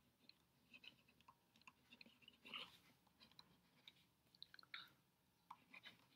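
Near silence, with faint scattered ticks and short scratches from a stylus writing on a tablet screen.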